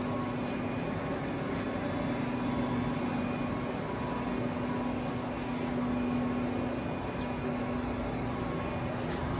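Steady machine hum: one constant low tone under an even hiss.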